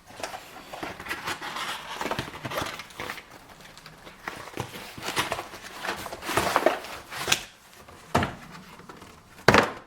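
Rustling and crinkling of packaging and photo prints being handled and lifted out of a box, with scattered sharp scrapes and clicks and one louder crackle near the end.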